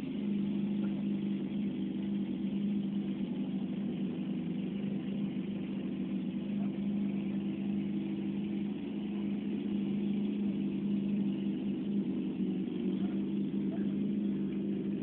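A machine engine or motor running steadily: an even, unchanging drone with a strong low hum.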